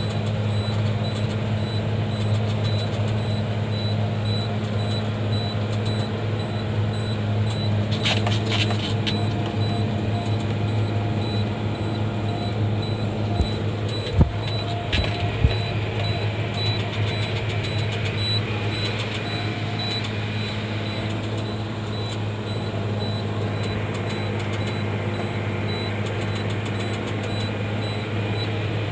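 Tractor engine running steadily with a constant deep hum, with a few short knocks about halfway through.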